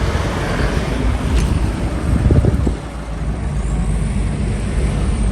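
Off-road 4x4's engine running hard under load, with a few knocks a little over two seconds in. Its loudness drops just before the three-second mark.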